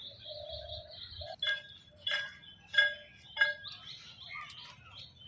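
Short ringing clinks repeating evenly, about three every two seconds, starting about a second and a half in, each with the same bright set of pitches. A thin steady whistling tone comes before them.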